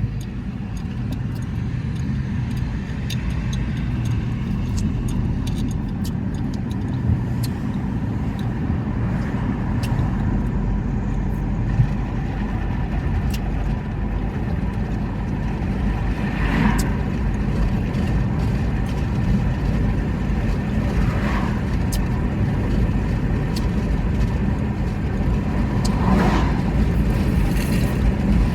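A person belching three times, short belches spread over the second half, over a steady low rumble like a car running.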